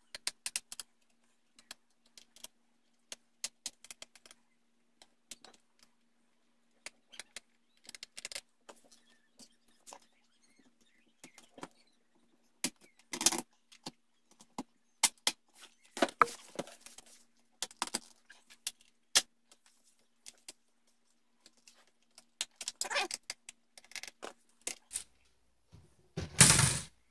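Scattered small clicks and scrapes of a screwdriver and hands working on the plastic underside of a Lenovo ThinkPad T460 laptop as its bottom-cover screws are loosened. Louder scraping and cracking follows as the plastic bottom cover is pried loose and lifted off near the end.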